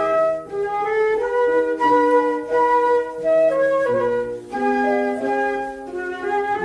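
Instrumental music from a children's song: a flute-like melody carried over a bass line.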